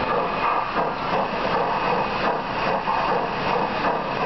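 Large-scale model steam locomotive running in place on a roller stand: a steady mechanical whir of its motor and driving wheels turning on the rollers.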